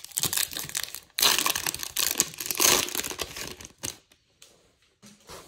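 Silver foil wrapper of a Topps Chrome baseball card pack being torn open and crinkled by hand. It rustles lightly at first, is loudest for a couple of seconds from about a second in, and dies away just before the end.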